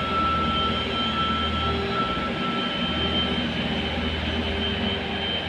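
Steady machinery drone in a large industrial hall: a constant low hum with high, even whining tones, one of which fades out about three seconds in.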